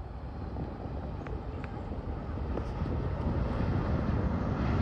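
Boeing 737 MAX 8 jet rumbling down the runway just after touchdown, its CFM LEAP-1B engines growing louder through the second half as reverse thrust spools up.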